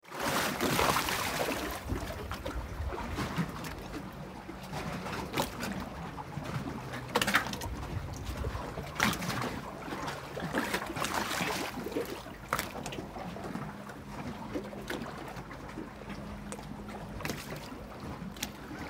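Small waves lapping and slapping against the hull of a moored motorboat and the dock, with irregular sharper splashes.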